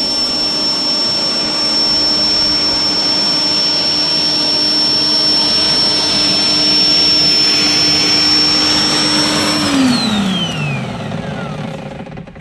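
Rock & Rocker 16-inch 15-amp corded electric dethatcher running steadily with a whine while being pushed across the lawn, its tines set at the highest height so they barely bite into the thatch. About ten seconds in, the motor is switched off and winds down, its pitch falling away.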